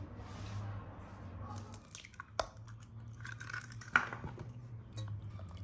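Stiff dough being worked with a spatula in a stainless steel pot: soft scraping and squishing, with a few sharp clicks against the metal. The loudest click comes about four seconds in, as an egg goes into the dough.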